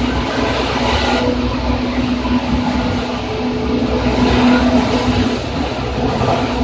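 Onboard running sound of an electric commuter train, heard inside motor car Moha 2375 of set 2075F: steady rolling noise with a constant low hum, as at cruising speed.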